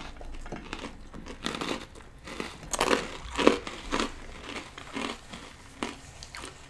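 Close-up eating sounds: chewing and crunching, with irregular crinkles and small clicks from food being picked out of plastic takeout containers and from a paper napkin.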